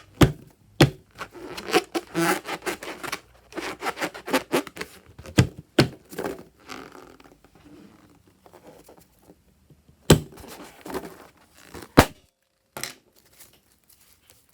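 Hands working slime and balloons: a run of sharp taps and thuds with sticky crinkling and tearing sounds, the loudest knocks about 10 and 12 seconds in.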